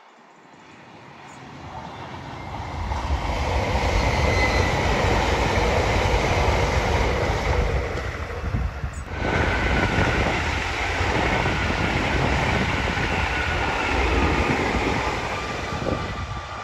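Two Hitachi high-speed passenger trains pass at speed one after the other, a Lumo set and then an LNER Azuma, with a steady rolling rail roar and a faint high whine. The noise builds over the first three seconds, dips briefly about nine seconds in, then rises again with the second train.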